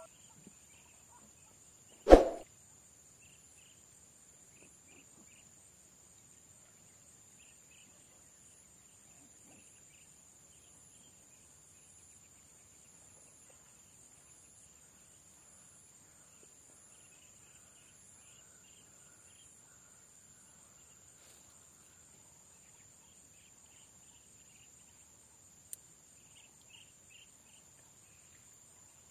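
Insects trilling: a steady high buzz with a faster pulsing trill above it, and scattered brief chirps. A single sharp thump about two seconds in.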